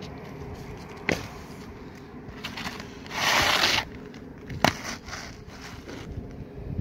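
Asphalt roof shingles being cut with a utility knife and handled into place: scraping and crackling, with a longer, louder scrape about three seconds in and sharp knocks about one and four and a half seconds in.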